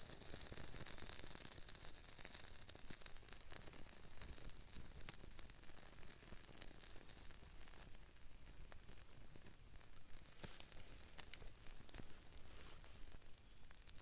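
Knife blade shaving curls from a damp birch stick while making a feather stick: a faint, irregular scraping with small clicks.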